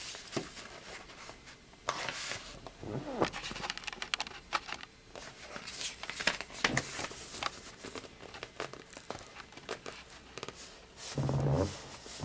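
Cardboard LP record sleeve being handled and moved about in the hands, giving irregular rustling, scraping and crackling with small clicks.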